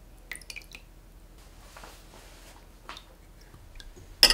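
Seasoned soy sauce trickling from a dispenser bottle onto a metal spoon and dripping into a ceramic bowl, with light clicks of the spoon and bottle. A sharp, loud knock near the end.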